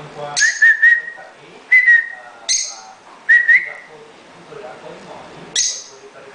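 Lovebirds calling: shrill, sharp chirps in clusters of two or three, with harsher screech-like calls between them, coming every second or so.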